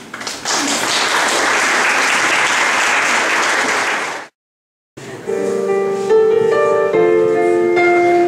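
An audience applauds for about four seconds. After a brief silence, instrumental music starts, a melody of steady held notes over held chords.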